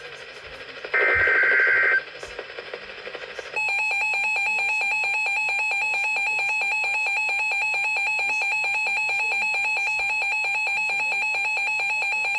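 A harsh digital screech of Emergency Alert System header data about a second in. From about three and a half seconds in comes the long, steady, shrill EAS attention tone, which cuts off sharply near the end and signals that an alert message follows.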